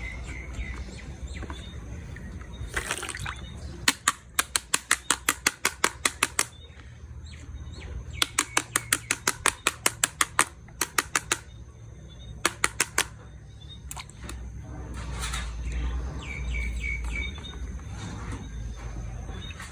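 Toy gun mechanism clicking in rapid runs of sharp clicks, about six a second, in three bursts with pauses between, over faint high chirps.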